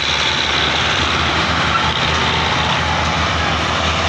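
Belarus tractor diesel engine running loudly and steadily under heavy load, pulling a trolley stuck deep in mud; a constant low drone under a thick hiss of noise.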